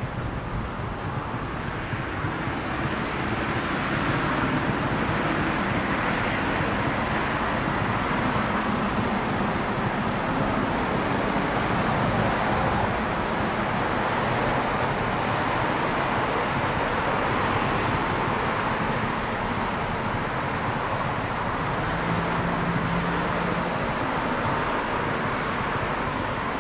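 Steady road traffic noise from passing cars, a continuous rush that swells and eases slowly.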